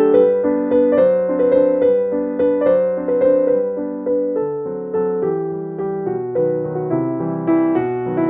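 Background music: piano playing a gentle melody with chords, several notes a second.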